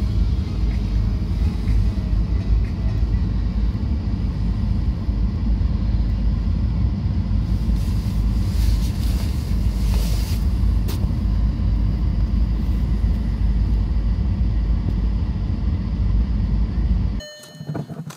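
1997 Audi A8 D2's 2.5 TDI five-cylinder diesel idling steadily at about 1000 rpm just after a cold start at −17 °C, heard from inside the cabin. The sound cuts off suddenly about a second before the end, leaving a few faint clicks.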